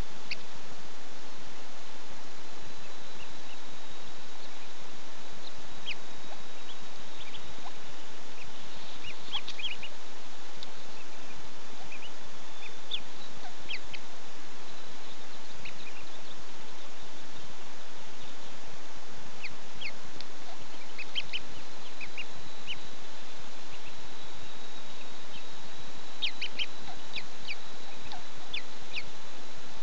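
Ducklings peeping in the nest: scattered short, high peeps coming in small flurries, over a steady hiss with a faint continuous whine.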